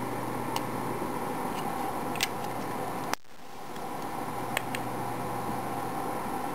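Steady room hiss and hum with a few faint light clicks. About three seconds in there is a sharp click where the recording is cut, and after it the hiss drops away and slowly builds back up.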